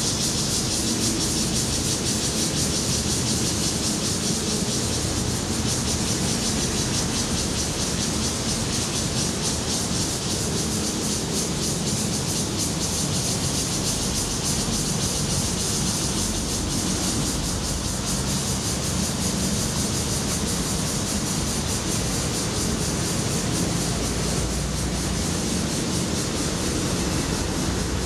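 Cicadas singing in chorus: a continuous, even, high-pitched drone, with a low rumble underneath.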